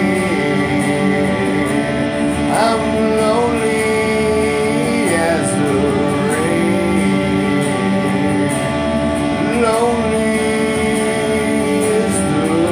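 Music from a song: guitar and a full backing under a slow melody that holds long notes and slides between them, with no sung words.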